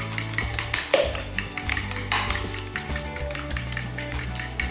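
Background music with held notes and a steady beat, over a metal spoon stirring egg-and-mayonnaise batter in a glass bowl.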